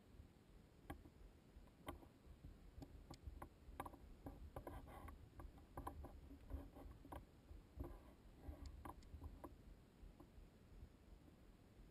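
Faint scattered crunches and clicks of footsteps scrambling over rock and loose gravel, busiest in the middle of the stretch and thinning out near the end, over a low rumble.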